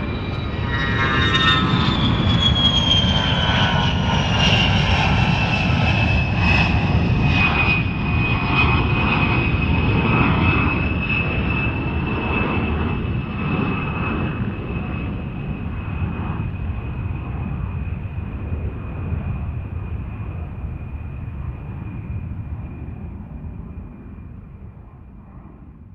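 Attack jet's engines, a loud rumble with a high whine that drops in pitch over the first several seconds and then holds steady. The sound slowly fades away, like a jet passing and moving off.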